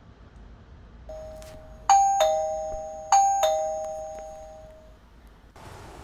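GEEKEE wireless video doorbell's indoor chime playing a two-note ding-dong twice, a higher tone then a lower one each time, ringing out and fading. Near the end it cuts abruptly to a steady hiss.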